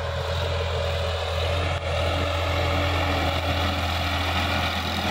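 Sonalika tractor's diesel engine running steadily as it pulls a rotary tiller across tilled soil, growing slightly louder as it comes closer.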